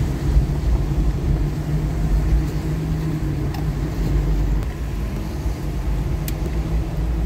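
Steady engine and road rumble heard from inside a car's cabin while driving on a wet street, with a few faint clicks.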